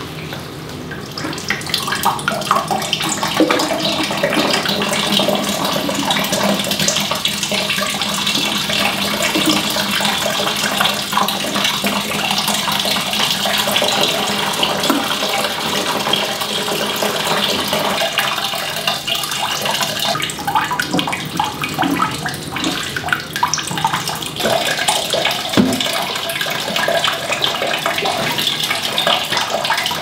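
Water poured from a plastic watering can into a potted plant's soil: a steady splashing, trickling stream that builds up about a second in.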